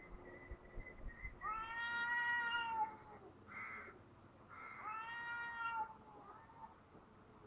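Two domestic black-and-white cats yowling at each other in a standoff, two long drawn-out wails with a short harsher sound between them. The wails sound like a baby crying.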